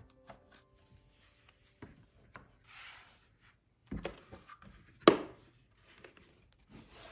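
Hands handling photo prints and a linen-covered photo box: small clicks, a soft rustle about three seconds in, a low thud near four seconds, and a sharp knock about five seconds in, the loudest sound.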